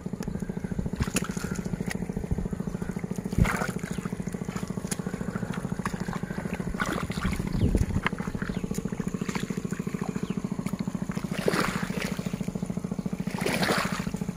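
Feet wading and sloshing through the muddy water of a flooded rice paddy, with a few louder splashes, over the steady drone of a small engine running.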